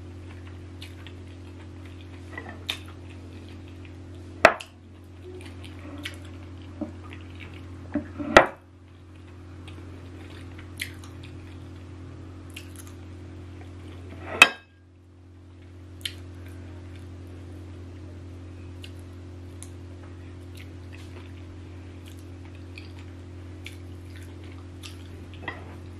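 Someone chewing and eating eba by hand, with small wet mouth clicks, and three sharp knocks about four, eight and fourteen seconds in, over a steady low hum.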